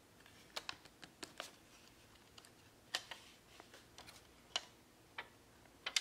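Irregular light clicks and taps as a 2.5-inch hard drive and its bracket are slid and pried against a laptop's plastic drive bay; the drive does not come free.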